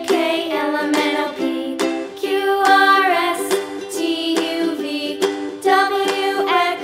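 Background music: a light tune with plucked strings and a melody line moving above them.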